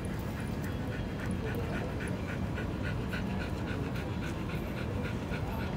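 A large Pomeranian panting quickly, about four short breaths a second, over a steady low crowd hum.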